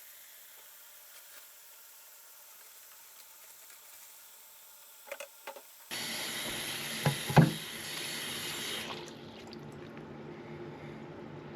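Faucet water running into a drain that has just been cleared of a clog, to test that it now drains. The tap comes on suddenly about six seconds in, with a couple of sharp knocks; near nine seconds the rush eases to a softer, steady flow.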